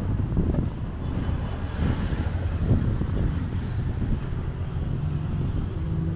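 Road traffic on the street beside the park: a steady low rumble of passing cars, swelling slightly about two seconds in.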